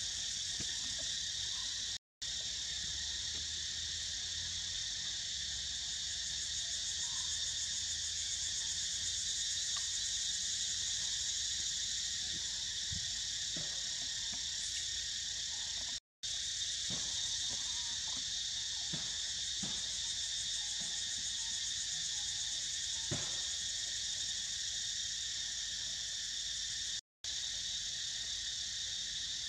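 Steady high-pitched chorus of forest insects, a continuous buzz on several pitches at once. The sound cuts out completely for a split second three times.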